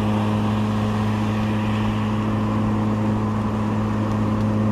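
Car engine running steadily, a constant low drone that does not change in pitch.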